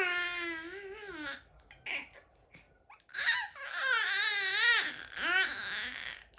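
A baby making long, wavering, cry-like fussing vocalizations: one tails off about a second and a half in, and a second, longer one starts about three seconds in and lasts nearly three seconds.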